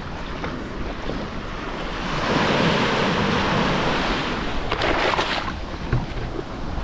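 Small surf waves breaking and washing up the beach. The wash swells about two seconds in and eases off after about five seconds.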